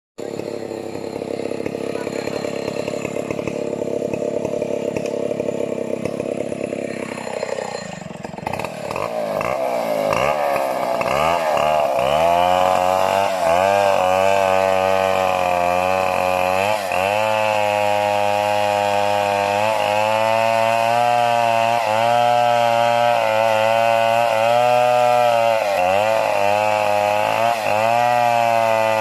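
Two-stroke chainsaw engine running: a rough, steady sound for about the first eight seconds, then revved up and down repeatedly and held mostly at high revs with short dips every couple of seconds.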